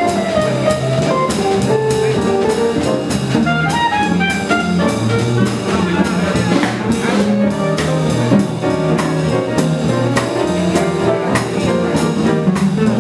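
Live swing jazz from a small combo of clarinet, piano, archtop guitar, double bass and drum kit, with a steady cymbal beat under a melodic line.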